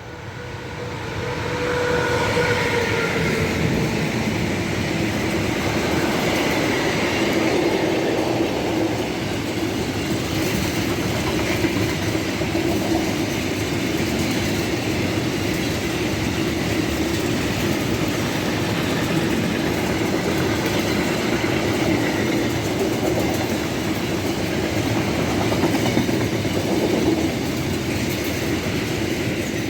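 Freight train passing close by: it swells in over the first couple of seconds, with a few steady tones early on, then a long, even rumble and clatter of wagon wheels on the rails that cuts off suddenly near the end.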